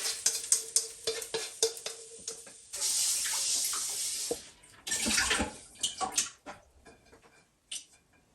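Utensil clinking and scraping against a metal wok, then a tap running for about a second and a half, then the wok clattering as it is rinsed in the sink.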